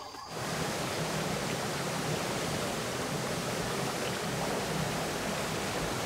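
Shallow forest stream, its water rushing steadily. It cuts in abruptly just after the start.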